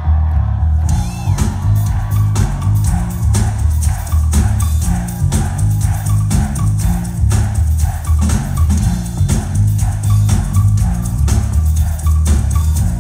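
Live indie rock band playing loudly through a venue PA, with a heavy bass line; the full drum kit comes in about a second in and keeps a steady driving beat.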